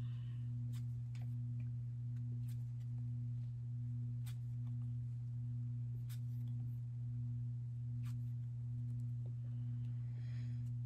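A steady low hum with a fainter, higher tone above it, under faint, scattered clicks of trading cards being handled and sorted.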